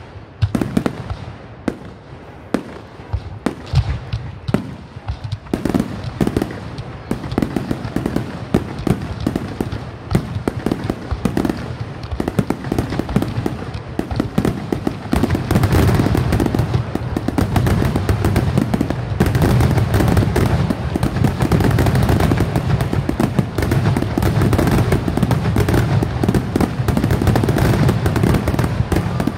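Aerial fireworks display: shells bursting in quick succession with crackle. Separate bangs at first, then about halfway through they thicken into a dense, almost continuous barrage of booms and crackling.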